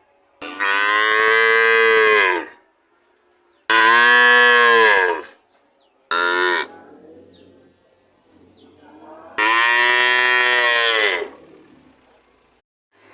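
Cow mooing four times: three long, drawn-out moos of one and a half to two seconds each, and one short moo in between.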